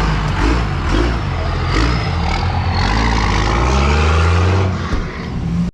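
Motor vehicle engine running under load with road noise, its pitch rising as it accelerates about three seconds in, then easing off near the end.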